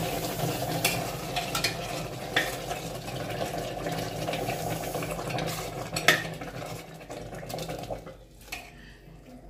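Boiling water poured into a hot steel pressure cooker of sautéed vegetables, rice and dal, sizzling and bubbling as it hits the pot, while a spoon stirring the mix clinks against the steel a few times, once sharply about six seconds in. The sizzle dies down over the last couple of seconds.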